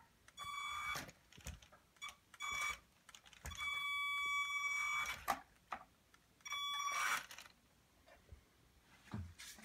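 High steady whine from the RC truck's electronics, switching on and off in four bursts. The longest lasts about a second and a half, and the pitch holds steady through each one. Faint clicks and knocks fall between the bursts.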